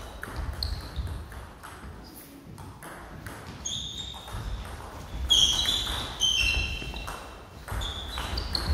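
Table tennis doubles rally: the plastic ball clicks off bats and table, busier from about five seconds in. Sports shoes squeak briefly and thud on the wooden hall floor as the players move.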